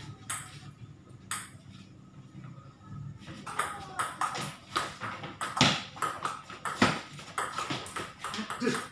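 Table tennis ball clicking off the players' bats and the table. A couple of lone hits come first, then from about three seconds in a fast rally of quick alternating clicks, with two louder hits in the middle of it.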